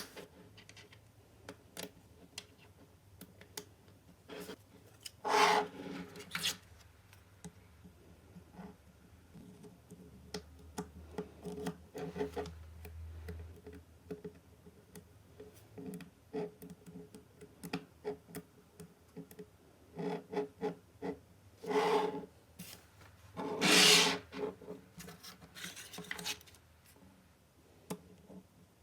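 Small magnetic balls clicking and snapping together one by one, with a few longer rasping runs as handfuls of balls scrape and roll against each other, the loudest near the end.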